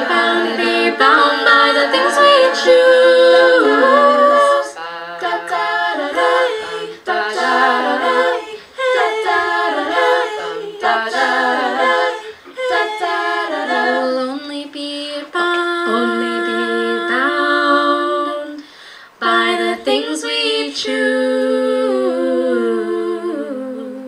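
A cappella vocal group singing in close harmony, several voices moving through chords in short phrases and ending on a long held chord that fades out near the end.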